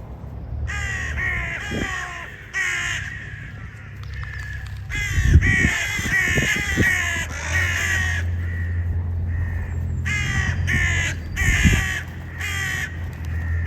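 Crows cawing harshly, many calls in quick clusters, over a low steady rumble.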